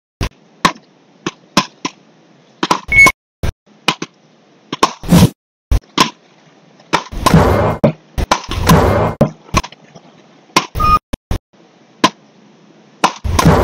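Beach paddles hitting the small ball back and forth in a fast rally: a string of sharp cracks, one or two a second, with a couple of longer, noisier stretches a little past halfway.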